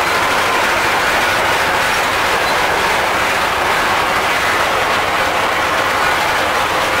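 Vladimir T-25 tractor, with its air-cooled two-cylinder diesel, running steadily under load while pulling a 1.65 m Virax drum mower, heard from inside the cab. A loud, even engine and machinery noise.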